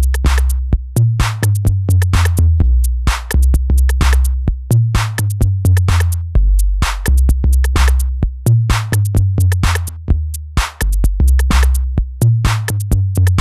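TR-808-style drum machine beat from an 808 kit: a short, clicky kick and crisp percussion hits keep a steady rhythm. Under it runs a bassline of long 808 kick notes played one at a time (monophonic, so the notes don't overlap), stepping between a few low pitches.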